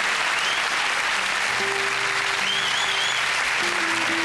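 Studio audience applauding over opening music, with held low instrumental notes coming in about a second in.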